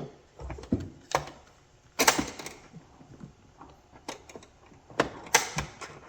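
Irregular clicks and clacks of a hard plastic hot stapler wand and its cable being picked up and handled, with the loudest clatter about two seconds in.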